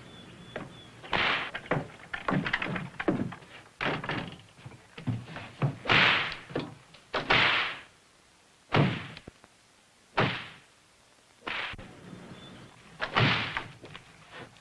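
Repeated heavy thuds and bangs: about a dozen separate hits, some coming in quick runs and some on their own, the loudest about six and seven seconds in.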